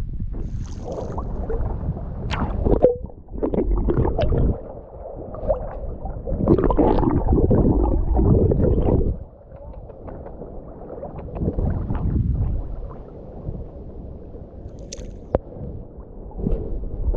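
Sea water sloshing and gurgling against a camera held at the surface and dipped underwater, coming in uneven surges with quieter, muffled stretches.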